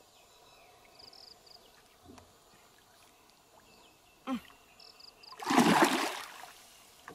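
A hooked giant snakehead thrashing at the surface beside the boat: one loud splash lasting about a second, a little past five seconds in.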